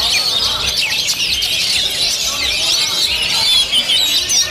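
Oriental magpie-robins (kacer) singing in their cages: a fast, unbroken stream of varied whistles, chirps and twitters, dense and overlapping.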